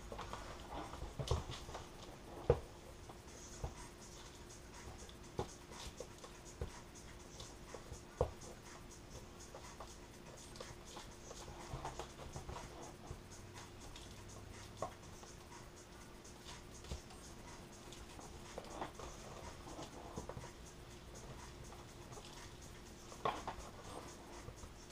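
Small hobby trim iron sliding and rubbing over laminating film on a foam plane wing, with scattered sharp clicks and taps. A faint steady hum runs underneath.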